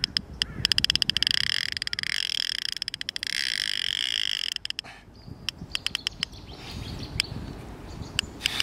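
Fishing reel drag clicking as a large wels catfish pulls line against a hard-bent rod. A fast run of clicks with a steady buzz for the first four seconds or so, then scattered single clicks.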